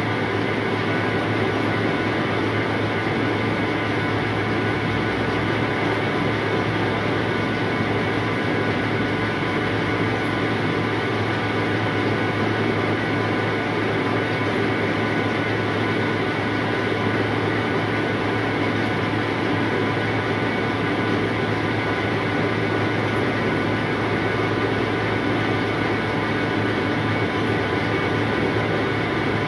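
Rice seed cleaning and sorting machine running steadily: a continuous mechanical drone with a low hum and a steady level throughout.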